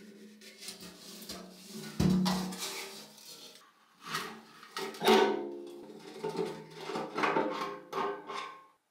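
A spanner and fingers loosen the rusty fuel tap on a Pannonia motorcycle's steel fuel tank: metal clinks and scrapes, with two louder knocks about two and five seconds in and steady ringing tones beneath. It all cuts off suddenly near the end.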